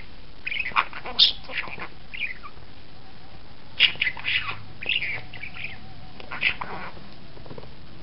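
Pet budgerigar giving short, sharp squawks and chirps in three quick flurries: about half a second in, around four to five seconds in, and once more near six and a half seconds.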